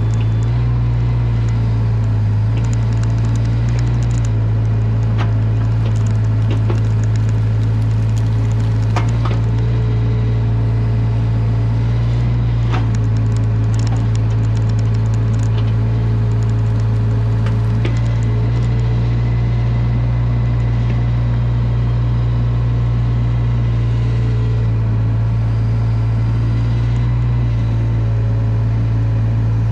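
Caterpillar 305 mini excavator's diesel engine running steadily, heard close from the operator's seat, with occasional sharp clicks and cracks as the rake tines drag through brush and sticks.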